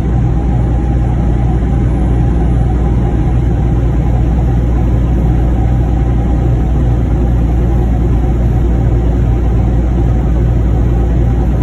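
Semi truck's diesel engine and road noise at highway speed, heard from inside the cab: a steady low drone.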